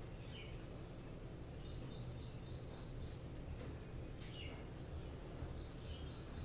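Faint scratchy rubbing of a paintbrush stroking paint across paper, over a low steady hum. Birds chirp in the background a few times, with short high calls.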